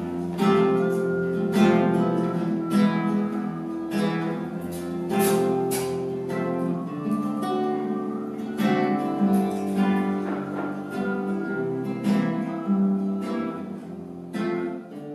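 Acoustic guitar music: strummed chords and picked notes, getting quieter near the end.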